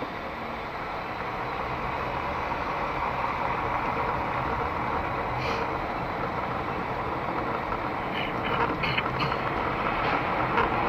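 Steady road and engine noise of a moving car heard from inside its cabin, growing slightly louder as it goes, with a few faint clicks near the end.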